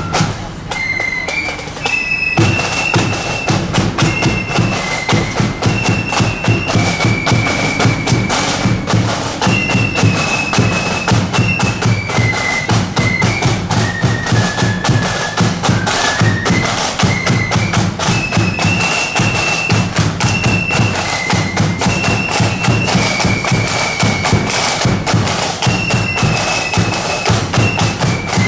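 A marching flute band playing a tune. The flutes carry a high melody over a steady beat of bass and side drums, and the drums come in hard about two seconds in.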